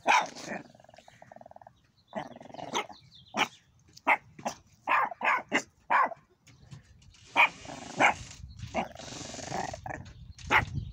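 A small puppy barking in short, sharp yaps, again and again at irregular intervals.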